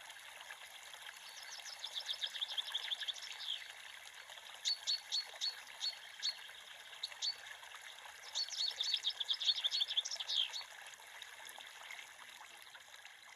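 Creek water running steadily, with a songbird singing over it in three bouts of quick, high, repeated chirps. The whole fades slightly near the end.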